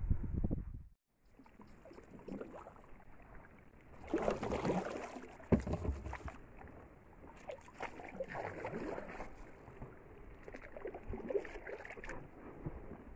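Kayak being paddled into a grassy bank: irregular paddle strokes in shallow weedy water and the hull brushing and rustling through grass and water plants, loudest about four seconds in, with a few sharp knocks.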